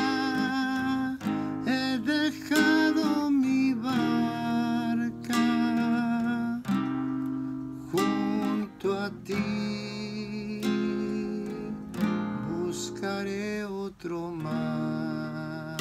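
Classical guitar with a capo playing a chord accompaniment on its own, plucked and strummed, in the instrumental interlude between the sung verses of a hymn.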